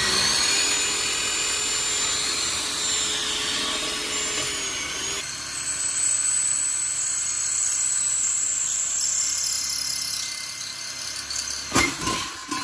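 Electric drill running at speed and boring a pilot hole into steel, a steady whine whose pitch and tone change about five seconds in. A sharp knock comes near the end.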